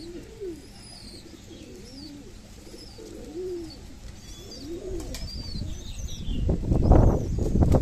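Domestic pigeons cooing over and over, one low rising-and-falling coo about every second, with short high chirps above them. Near the end a loud rushing noise swells up over the cooing.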